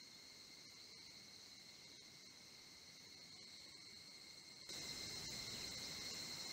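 Faint, steady insect chorus: an even, continuous high trill with no breaks. It grows suddenly louder about three-quarters of the way through.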